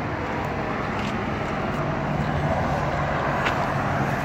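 A motor vehicle engine running steadily, a low even hum.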